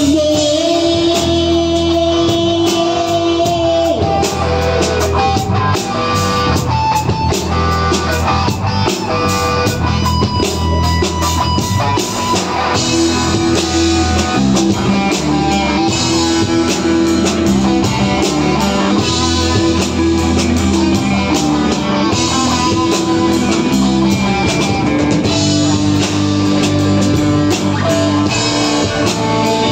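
Live rock band playing an instrumental passage with no vocals: electric guitars, bass guitar and a drum kit.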